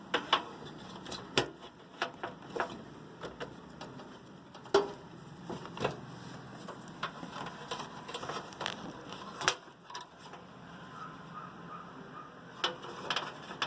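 Irregular small clicks and taps of cable connectors being handled and pushed onto motherboard header pins.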